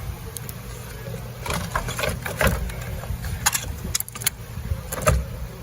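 Scattered knocks and clunks of a car battery and its hold-down hardware being handled as the battery is lifted out of its tray, over a steady low hum.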